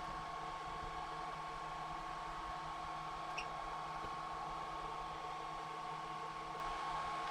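Steady low hiss and hum with a constant high-pitched whine, and one faint click about three seconds in.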